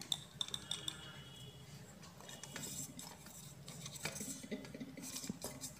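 Faint clinks and light taps of a stainless-steel mixer-grinder jar being tipped and knocked against a steel bowl to empty out ground powder, with brief metallic ringing.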